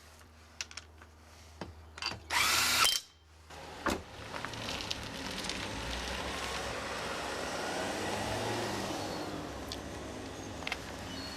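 Tyre fitter's impact wrench running in one loud burst of under a second, about two seconds in, among a few clicks. A steady rushing noise then swells and fades.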